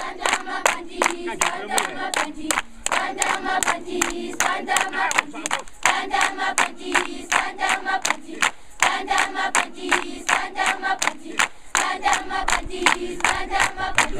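A group of schoolchildren singing together in short repeating phrases while clapping in a steady rhythm, about three claps a second.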